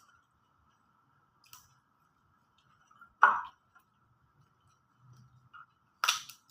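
A few light clicks and one short, louder clink or knock about three seconds in, with another pair of sharp clicks near the end, over a faint steady high hum.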